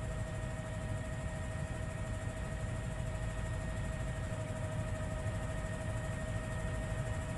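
Helicopter engine running steadily: a low rumble under a constant high whine.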